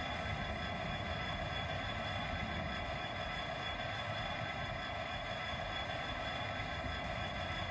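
Factory-fitted DCC sound decoder in a Bachmann Class 66 model locomotive playing the diesel engine at a steady idle through the model's small speaker, an even hum with high tones over a low rumble.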